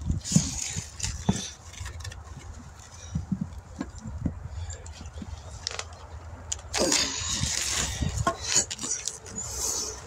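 Two steel tire irons levering a tire's bead off the wheel rim by hand: scattered metal clicks and knocks, then a longer, louder stretch of scraping about seven seconds in. A steady low hum runs underneath.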